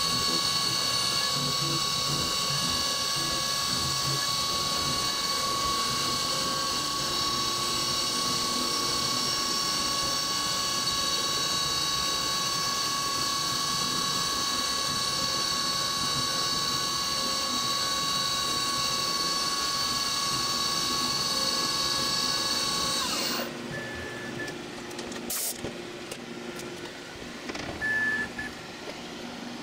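CNC milling machine spindle running while an end mill cuts a steel plate under flood coolant: a steady machine whine with several high tones. About 23 seconds in it stops suddenly, leaving a quieter background with a click and two short beeps.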